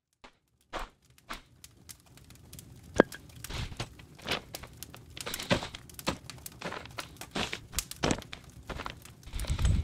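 Folding camp chair being pulled from its nylon carry bag and opened out: rustling, crinkling nylon fabric and irregular clicks and knocks from the chair's frame, with one sharp click about three seconds in.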